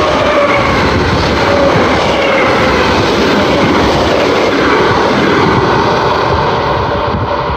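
ED4M electric multiple unit running past at speed: steady rolling noise of wheels on rails, with the whine of its traction motors falling slowly in pitch. The sound loses its high end near the end as the train moves away.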